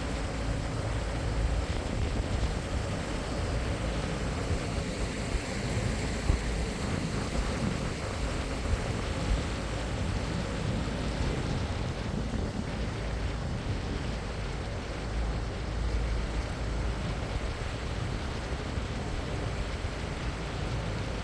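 A boat under way: its motor running steadily, with wind buffeting the microphone and water rushing past.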